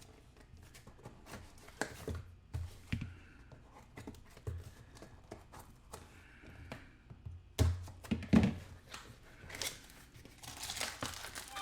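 A package being opened by hand: scattered knocks and handling sounds, with two louder knocks about eight seconds in. Near the end the packaging is torn and crinkled.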